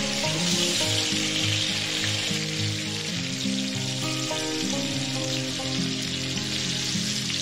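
Steady sizzling hiss, with background music of sustained notes underneath.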